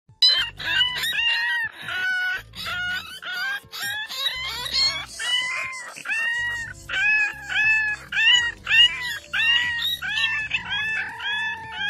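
French bulldog puppies yelping and howling in short, high, arching cries, many in quick succession, over background music with a low bass line.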